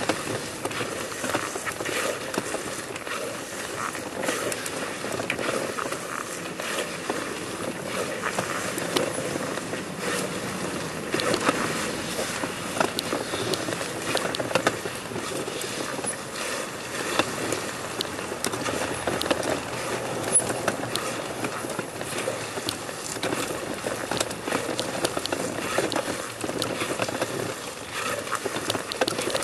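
A person crawling on their belly across stone paving, clothing and body scraping and rustling on the stones in a steady scratchy shuffle dotted with small clicks.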